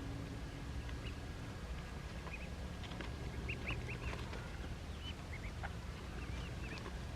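Ducklings peeping in short, high chirps, scattered and in quick clusters, over a steady low background rumble.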